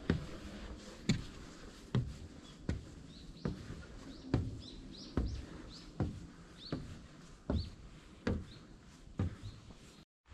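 Footsteps climbing wooden stairs, a steady thud about every 0.8 s. A bird chirps several short times through the middle.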